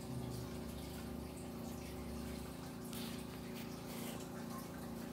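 A steady low hum with a watery, trickling quality, like a small water pump running. Over it, faint soft rubbing and patting as gloved hands smooth a paper towel onto wet acrylic paint, a little stronger about three seconds in.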